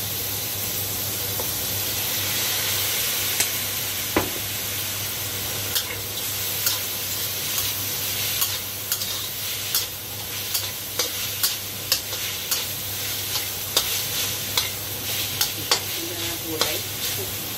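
Cubes of pork belly sizzling in hot oil in a wok, with a spatula scraping and clacking against the pan as they are stirred. The clacks are irregular, starting a few seconds in.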